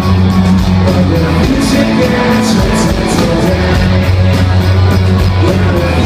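Live rock band playing loud through a concert PA, recorded from the crowd: electric guitar and held bass notes under regular cymbal hits from the drum kit.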